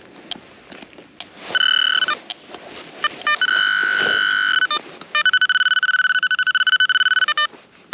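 Garrett Vortex VX9 metal detector giving its target tone: a short beep, then a steady beep, then a rapid pulsing beep near the end, with faint scattered clicks early on.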